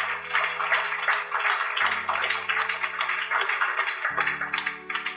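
Audience clapping and applauding, over soft background music of slow held chords that change about every two seconds.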